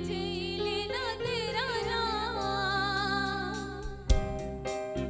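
A woman sings a slow, ornamented melody with wavering held notes over sustained backing chords. About four seconds in there is a sudden loud thump, followed by a few sharp knocks.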